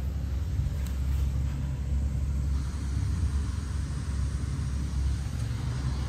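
Outdoor central air-conditioner condenser unit running: a steady low hum from its compressor and fan.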